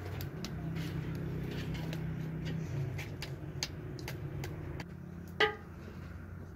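Open wood fire crackling under a stone hearth, with scattered sharp clicks over a steady low hum. One short, sharp pitched sound stands out about five and a half seconds in.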